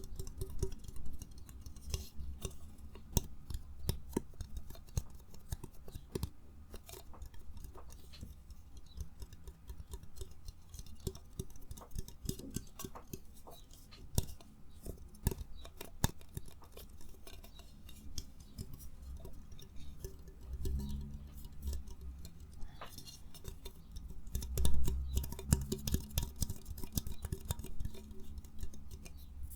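Close-miked ASMR trigger sounds: small objects handled and tapped, giving irregular sharp clicks and taps over soft handling rumble, with a louder burst of handling about 25 seconds in.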